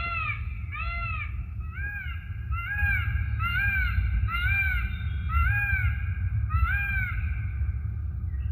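An animal calling in a fast, steady run of short calls, each rising then falling in pitch, about two a second, over a steady low rumble.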